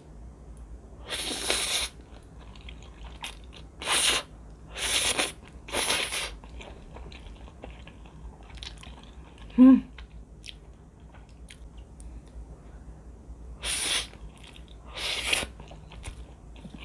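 Instant noodles (rosé Shinramyun) slurped into the mouth in short hissy pulls, four in the first six seconds and two more near the end, with soft chewing and mouth clicks between. About ten seconds in comes one short hummed 'mm' of the voice.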